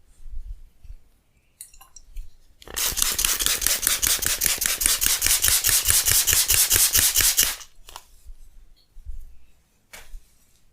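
Hands working a head massage, with a rapid, even run of sharp rubbing or tapping strokes on the head and hair lasting about five seconds, starting about three seconds in. A single short click comes near the start and another near the end.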